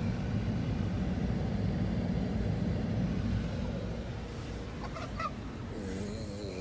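Labrador puppy snoring loudly in its sleep, a steady low rumbling breath that eases off about halfway, with a brief wavering pitched sound near the end.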